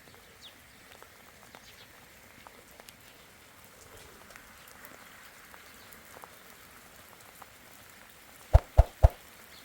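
Rain falling steadily, with scattered drips ticking. Near the end come three quick thumps, the loudest sounds.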